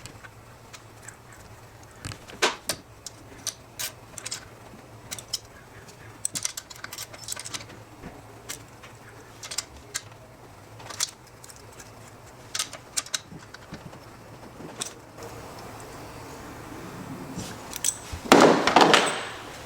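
Small metal parts and hand tools clinking and tapping against each other during assembly of the engine's cylinder head, with a louder, denser rattling clatter for a second or so near the end.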